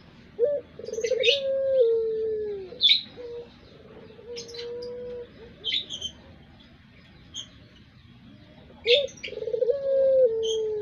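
Puter pelung dove cooing: a short rising note, a rolling trill, then a long held coo that dips at its end, given twice about eight seconds apart. Short high chirps from another small bird are heard between and over the coos.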